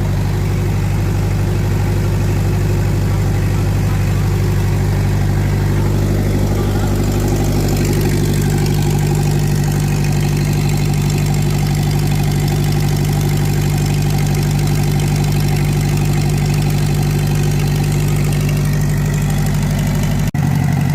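Mitsubishi four-cylinder diesel engine of a 30 kVA generator set running steadily at constant speed, with a brief dropout near the end.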